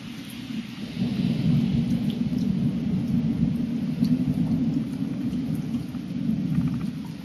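Thunder rumbling with rain falling. The rumble swells about a second in, holds for several seconds and eases near the end, over a steady hiss of rain with a few drop ticks.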